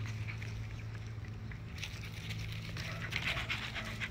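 Pembroke Welsh corgi puppies panting in quick, rapid breaths, strongest in the second half, over a steady low hum.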